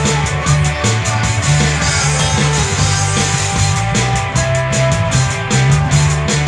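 Rock band playing a song: electric guitar over an electronic drum kit's steady beat, with held low notes that change every half second or so underneath.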